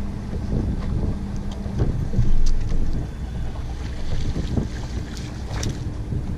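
Wind buffeting the microphone and water lapping at a bass boat's hull, under a low steady hum that shifts pitch about two seconds in. Near the end a few sharp ticks and splashes come as a hooked bass thrashes at the surface.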